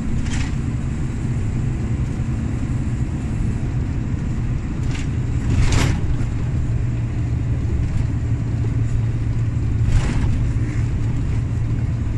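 Volvo FH460 truck's 13-litre six-cylinder diesel heard from inside the cab while cruising: a steady low engine drone over tyre and road noise. A few short sharp knocks cut through it, the loudest about six seconds in and another about ten seconds in.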